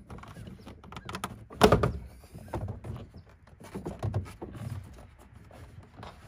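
Plastic air intake duct of a 2015 Chevy Tahoe being worked loose from the throttle body and lifted off the engine: a series of plastic knocks and clunks, the loudest a little under two seconds in.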